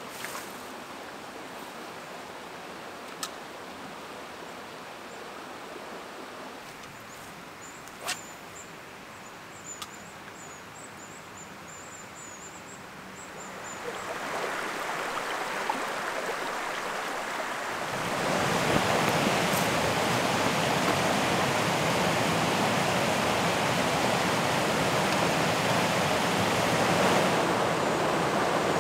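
River water rushing over rocks and rapids, a steady rush that gets louder about halfway through and louder again about two-thirds through. A few sharp clicks in the first ten seconds and faint high-pitched chirping sit over the quieter part.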